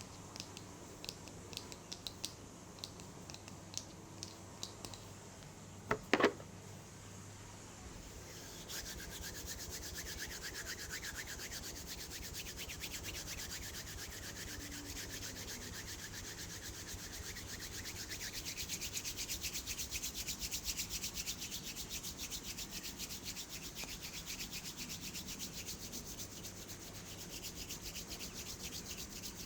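Hands rubbing close to the microphone in fast, even strokes, starting about eight seconds in. Before that there are a few soft ticks and one sharp knock about six seconds in.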